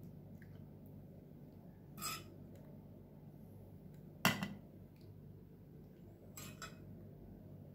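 Metal serving spoon clinking against a stainless steel pot and a metal baking tray while meat sauce is spooned out: a clink about two seconds in, a louder one midway, and two quick ones near the end, over a faint steady hum.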